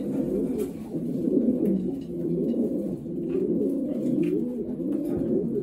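Several racing pigeons cooing at once, their low, rolling coos overlapping without a break.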